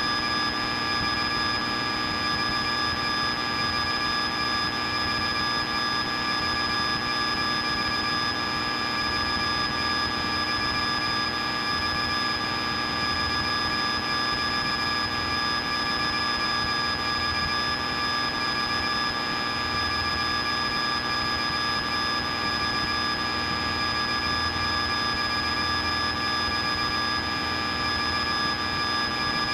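Piper Cherokee's engine and propeller running steadily in flight, heard from inside the cabin, a constant noise with several steady high tones over it.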